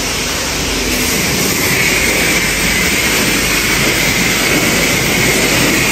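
High-pressure rinse wand at a self-serve car wash spraying water over a car: a loud, steady hiss, with a faint high whine coming in about a second and a half in.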